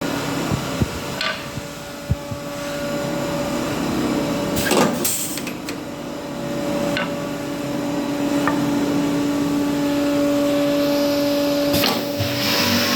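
Multi-spindle wood drilling machine running with a steady motor hum, several sharp knocks and clicks over it; the sound grows gradually louder and shifts in tone near the end.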